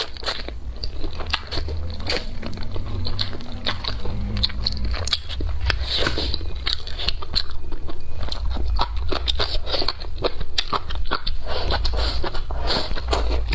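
Close-miked eating: repeated crisp bites and crunching chews of crunchy food, a dense run of irregular crackles over a steady low hum.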